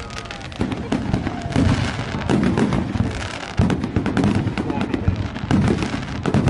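Fireworks display: a rapid series of deep booms from bursting shells, about one a second, over continuous crackling.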